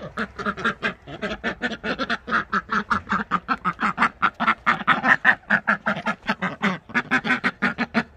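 White domestic ducks quacking in a fast, continuous run of short quacks, several a second.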